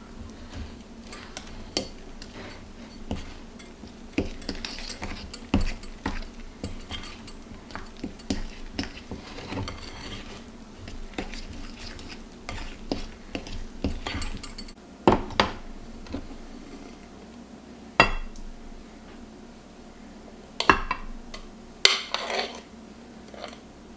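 Kitchen dishes and utensils clinking and knocking in an irregular run of small clicks, with a few louder sharp knocks in the second half.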